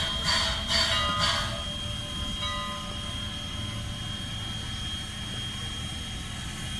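Steam locomotive No. 89's bell ringing about twice a second as the engine backs up, stopping after about a second and a half. The low running rumble of the slowly moving locomotive carries on after the bell stops.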